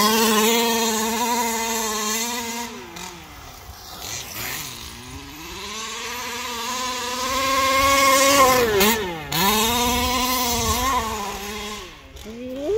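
HPI Baja 5T 1/5-scale petrol RC truck's two-stroke engine running under throttle, the revs rising and falling as it is driven across grass. It fades as the truck gets far off a few seconds in, then builds again; the note drops sharply and climbs back about nine seconds in and again near the end as the throttle is let off and reopened.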